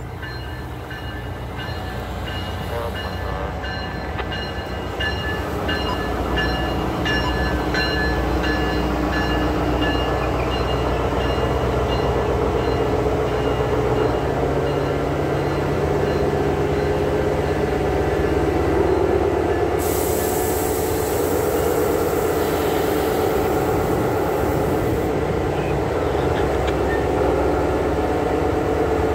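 Amtrak passenger train pulling into the station and rolling slowly past, its locomotive engine running and wheels rolling, growing louder over the first dozen seconds and then holding steady. A hiss rises over it for about five seconds past the middle.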